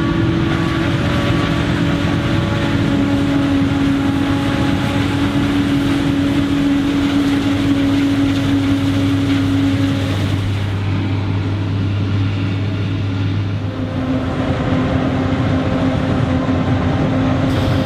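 Claas Jaguar 930 forage harvester and Claas Axion 810 tractor running side by side while chopping maize: a loud, even machinery drone with steady humming tones, whose tone shifts after about ten seconds.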